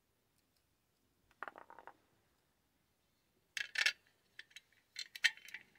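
Light metallic clicks and clinks from the parts of a soldering iron stand being handled and fitted together: a quick little rattle about a second and a half in, then sharper clicks around three and a half and five seconds in.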